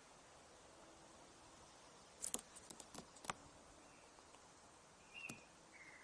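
Faint sharp clicks and taps from a laughing kookaburra moving and picking at food on an outdoor tabletop: a quick cluster of them around two to three seconds in and one more about five seconds in, with a brief high chirp alongside the last.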